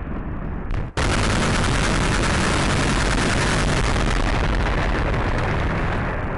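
Loud combat noise: an abrupt, dense roar that starts about a second in, holds steady for several seconds and eases near the end.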